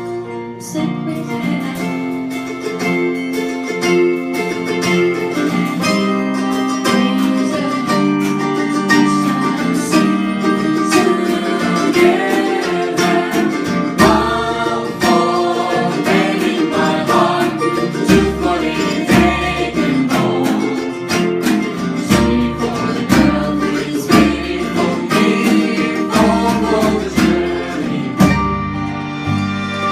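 Live band playing a bluegrass-style song: plucked acoustic strings and singing, with low bass notes coming in about halfway through.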